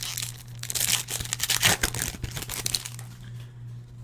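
Crinkling and rustling of a foil trading-card pack wrapper and cards being handled. It makes dense crackles that thin out about three seconds in.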